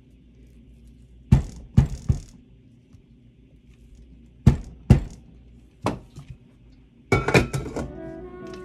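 Sharp knocks of a spatula tapped against a stainless steel mixing bowl, in small groups. Near the end comes a cluster of metal clanks with a ringing tone as the steel bowl is set onto the stand mixer's base.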